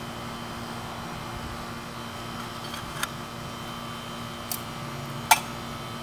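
Light metallic clicks and one louder clink with a brief ring about five seconds in, as a metal cup is set on a homemade tin-can stove, over a steady background hum.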